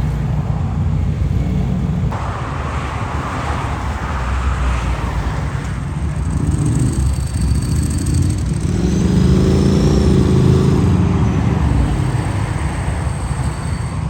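Motor vehicle engines with a steady low rumble and passing traffic. From about six seconds in, one engine's note rises and then falls, loudest around ten seconds.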